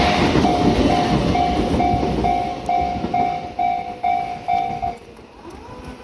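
A level-crossing warning bell dinging about twice a second over the rumble of a Tobu Railway train running past, the train noise fading away. The bell stops about five seconds in as the crossing clears.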